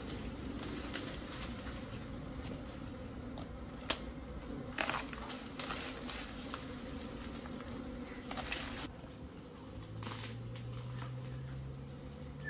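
Bees buzzing around freshly cut honeycomb: a steady low drone, with a closer, louder buzz that rises slowly in pitch near the end. A few short rustles break in around the middle.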